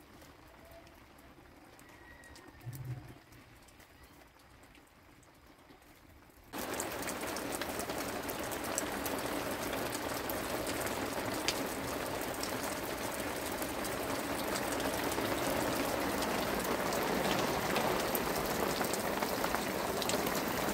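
Steady rain falling on muddy ground and puddles, starting abruptly about six seconds in. Before that it is quiet, with one soft low thump.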